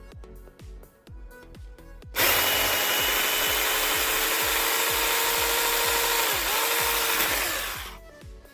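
Small battery-powered mini chainsaw (pruning saw) running and cutting through firewood for about five and a half seconds, its motor whine steady, then dipping briefly in pitch as it slows under load before it picks up again and stops. Background music with a steady beat plays before and after the cut.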